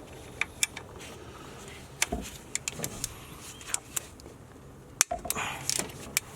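Hand tools working on the belt tensioner's mounting bolts: irregular metallic clicks and clinks of a socket and wrench against metal, over a steady low hum.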